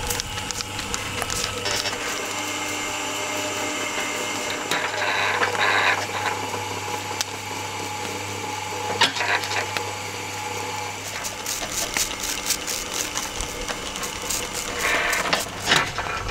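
Electric spit motor turning a whole bull carcass over a wood fire, running with a steady hum. Short squirts of a hand spray bottle and crackles from the burning logs come through over it, in clusters at the start and again in the last few seconds.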